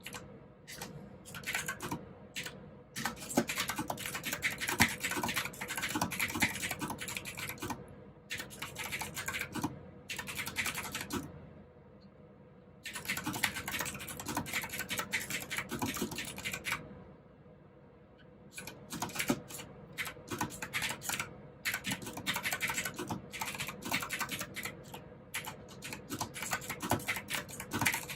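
Typing on a mechanical keyboard with clicky blue switches: fast runs of sharp key clicks, broken by short pauses a few times.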